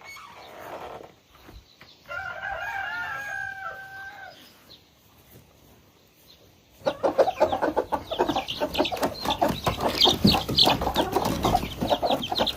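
A rooster crows once: a single long, held call about two seconds in. From about seven seconds in, several chickens cluck and squawk in a loud, busy clatter.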